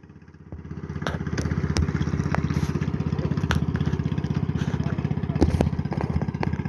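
A small engine running with a rapid, even putter, coming up in loudness over the first second or so, with a few sharp clicks over it.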